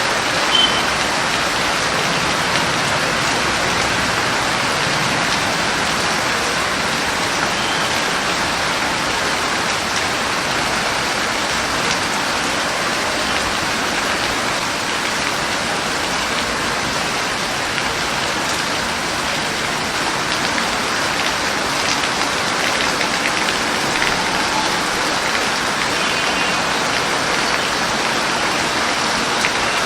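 Steady rain falling, a dense, even patter of drops on a surface.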